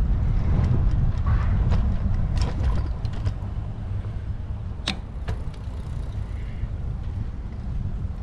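Wind rumble on a camera riding along on a moving bicycle, with scattered clicks and rattles from the bike over the path, one sharp click about five seconds in. The rumble eases after about three seconds.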